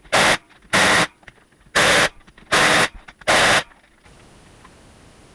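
Five short, even bursts of hiss from a compressed-air tool, each about a third of a second, ending about four seconds in.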